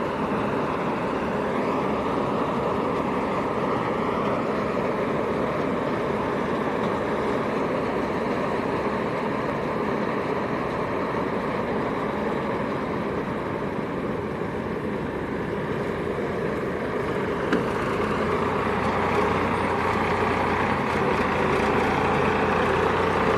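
Combine harvester running steadily while harvesting rice, its engine and threshing machinery giving a continuous mechanical drone that grows a little louder near the end.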